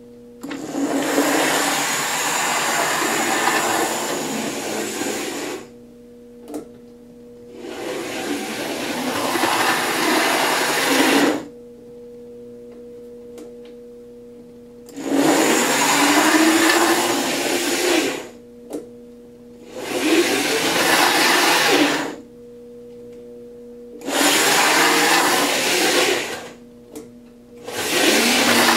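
Hornby Class 29 OO gauge model diesel locomotive running on DC power, its motor and wheels whirring loudly each time it passes close and fading between passes. This happens six times, the passes shorter and closer together as the power goes up to full. A steady low hum runs underneath.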